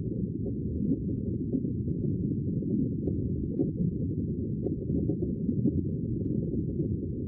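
Steady, muffled low rush of sea water with no treble, and faint small clicks now and then.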